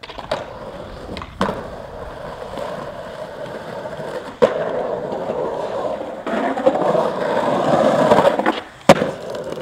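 Skateboard wheels rolling on the concrete of a drained swimming pool, broken by sharp knocks of the board hitting the concrete, the loudest about four and a half seconds in. The rolling grows louder and rougher from about six seconds as the skater carves up the pool wall, then ends in a sharp crack near the end.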